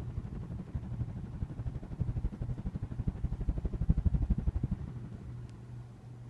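Harbor Breeze Rutherford ceiling fan running on its high factory speed: a steady low hum with rapid low pulsing that swells through the middle and fades toward the end.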